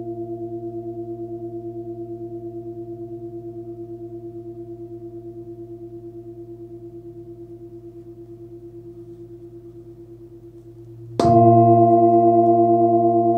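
A 24 cm Nepalese singing bowl with a fundamental of about 111 Hz rings and slowly fades with a regular wavering pulse, its low hum and several higher overtones sounding together. About eleven seconds in it is struck again with a mallet, and it rings out loud and full.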